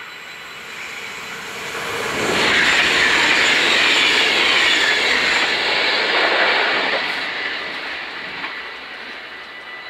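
NS VIRM double-deck electric train passing over a level crossing: its rail noise swells about two seconds in, stays loud for about four seconds, then fades away. The crossing's warning bells ring throughout as steady high tones.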